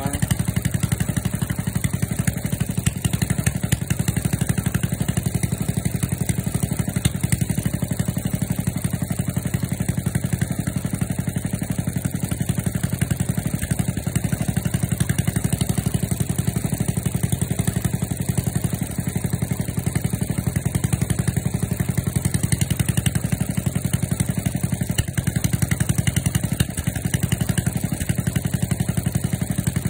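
Small engine on a walk-behind two-wheel tractor idling steadily as it warms up after a cold start.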